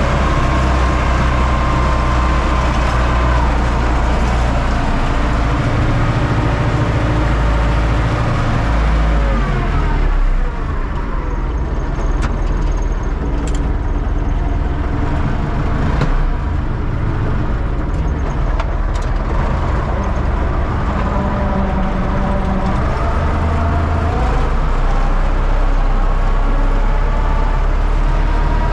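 Universal U650 tractor's diesel engine running steadily, its note sinking briefly a couple of times.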